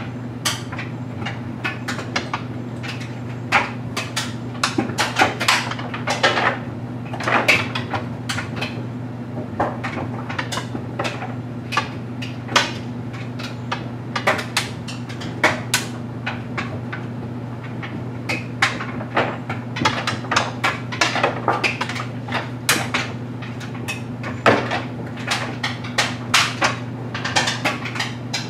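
LG Mega Capacity clothes dryer running with a steady low hum, its drum tumbling a load of stuffed animals, with irregular hard clacks and knocks several times a second as the load hits the drum and door.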